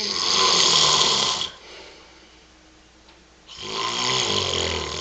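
A man snoring loudly: two long snores about two seconds apart, the second with a low fluttering rattle.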